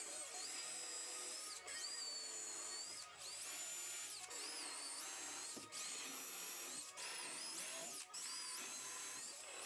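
Cordless drill running in about seven short pulls of the trigger, its motor whine rising at each start and falling at each stop, as it pre-drills and drives screws into plywood.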